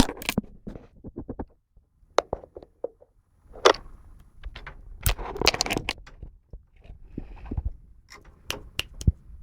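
Scattered, irregular scrapes, clicks and light knocks, with a quiet gap about two seconds in and clusters of clicks later on.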